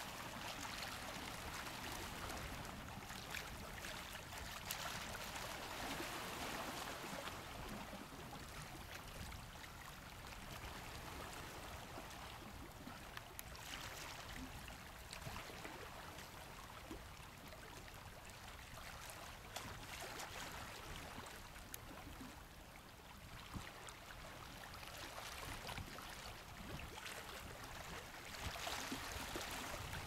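Small sea waves lapping and sloshing against algae-covered rocks at the water's edge, the wash rising and easing gently with a few faint splashes.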